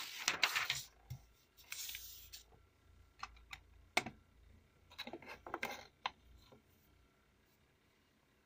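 Sheets of paper being handled and slid across a wooden desk: bursts of rustling with a few sharp taps and clicks, the loudest about four seconds in.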